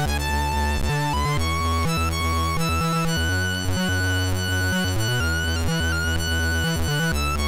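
Chiptune music from a Commodore 64's 6581 SID sound chip: a synthesized tune with a repeating bass figure under a lead melody.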